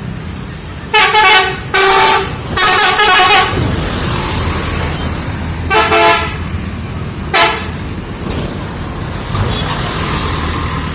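A bus's 'telolet' musical horn sounding five short multi-note blasts about a second in, near two seconds, from about two and a half to three and a half seconds, near six seconds and at about seven and a half seconds. The longest blast steps through several pitches. A bus engine runs low underneath.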